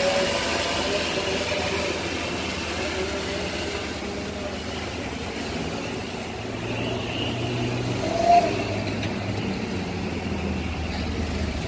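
Daihatsu Gran Max van running steadily on the road, a low engine hum with road noise, and a brief higher sound about eight seconds in.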